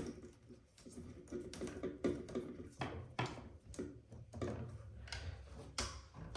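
Irregular small clicks, taps and rustles of electrical wires being handled and pulled in a switch wall box.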